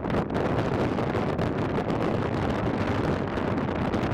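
Strong wind from an approaching thunderstorm squall line buffeting the microphone: a steady, loud rush, heaviest in the low end, with no separate thunderclaps.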